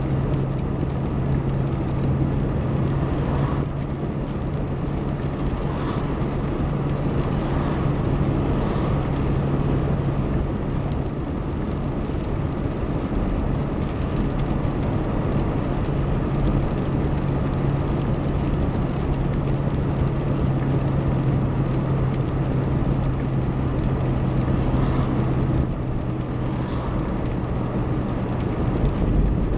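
Steady engine and road noise of a moving car heard from inside the cabin, with a constant low hum.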